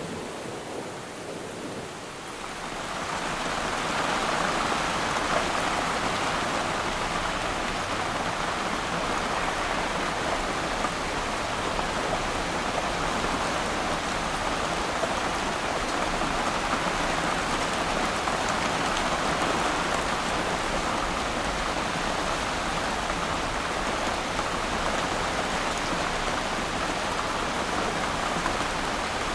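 Steady rain falling on water, a dense patter that swells louder about two to four seconds in and then holds even.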